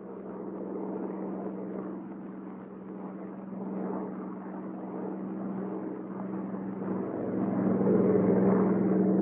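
Bell P-39 Airacobra's Allison V-1710 V-12 engine running steadily with the throttle opened up, growing louder about seven seconds in.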